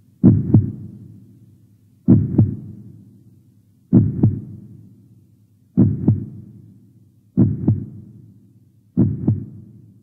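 Heartbeat sound effect: a double thump, lub-dub, repeating slowly six times, about every second and three quarters, each beat with a fading tail.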